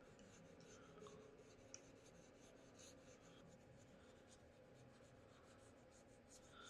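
Faint scratching and rubbing with scattered small ticks, at a very low level.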